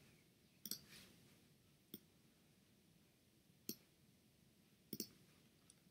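Computer mouse clicking, a few sharp clicks, some in quick pairs, against near silence.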